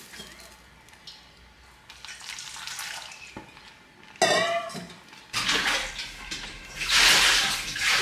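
Wooden spoon stirring thick ogi (maize pap) in a steel pot: faint soft scraping and small clicks. About four seconds in comes a brief high gliding sound, and from about five seconds in a louder water-like rushing noise.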